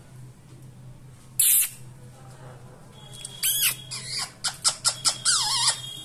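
Indian ringneck parakeet calling: one harsh screech about a second and a half in, then a run of chattering calls with wavering, gliding pitch and a few sharp short squawks over the last three seconds.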